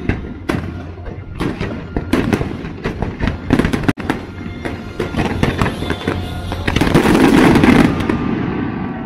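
Fireworks bursting over a music soundtrack: many sharp pops and booms in quick succession, growing densest and loudest about three quarters of the way through.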